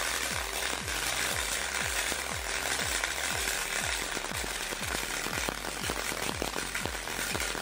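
CO2 gas-shielded semi-automatic (MAG) welding arc on thick steel plate, crackling steadily through the final cap pass, with a regular low pulse about two to three times a second.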